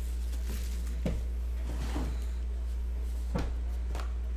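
Handling of a trading-card box: a cardboard outer box slid off a metal tin and the tin set on the table, giving two dull knocks about a second in and again past three seconds, with rustles between. A steady low hum runs underneath.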